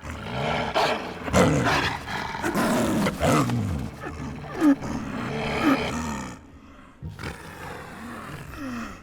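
Two snow leopards, a male and a female, growling at each other in a run of harsh calls, loudest through the first six seconds and sparser after. This is the wary growling of a mating pair approaching each other cautiously.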